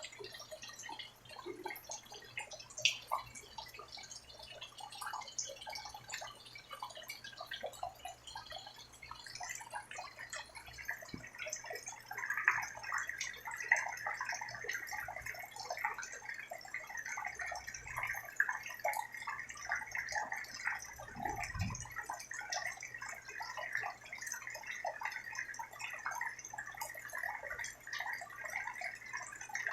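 Rain falling and dripping as a dense patter of small drops, growing thicker about twelve seconds in, over a faint steady low hum.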